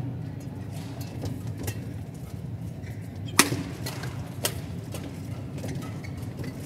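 Badminton rally: rackets hitting the shuttlecock in sharp smacks about once a second, the loudest about halfway through, over steady arena background noise.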